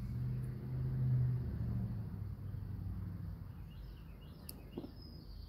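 A low, steady rumble with a hum, swelling about a second in and then slowly fading, with a couple of faint clicks near the end.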